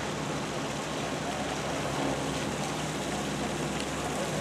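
Steady low engine hum under an even wash of noise, with no distinct events.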